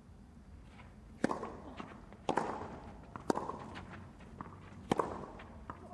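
Tennis rally on a clay court: a tennis ball struck by racket strings four times, sharp pops about a second apart, with fainter ball bounces and shoe scuffs between the hits.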